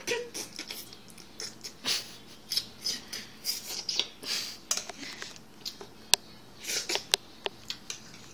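Metal spoon scraping and clinking against a small ceramic bowl as Jell-O is scooped up, in a string of short scrapes with two sharp clinks near the end.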